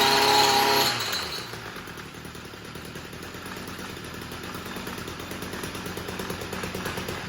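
Stihl MM55 Yard Boss small two-stroke engine running just after starting on the first pull. It revs high for about a second, then settles to a steady idle. It now runs cleanly, with the backfiring cured by a new ignition coil.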